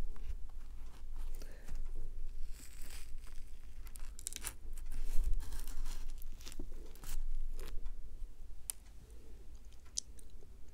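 Lotus cube pie, a square laminated pastry with a crumbly biscuit topping, pulled apart by hand, its crisp crust crackling and tearing in several bursts, loudest about halfway through.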